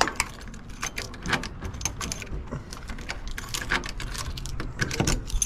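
Keys jangling, with a rapid run of small clicks and rattles as the truck's cab door is unlocked.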